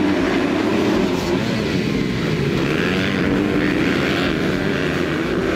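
A pack of motocross bikes accelerating off the start line together, many engines revving hard at once. They pass close by about halfway through.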